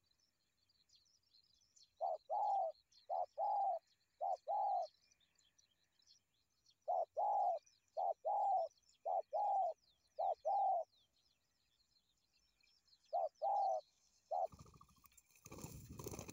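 Spotted dove cooing: runs of short two-part coos repeated in groups, with faint chirping of small birds behind. Near the end a dove beats its wings hard on the ground in a loud flutter.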